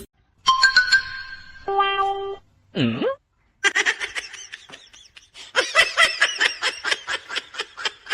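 Cut-together comedy sound effects and music: two short held tones, a quick swooping pitch slide about three seconds in, then a fast, choppy run of high notes mixed with laughter.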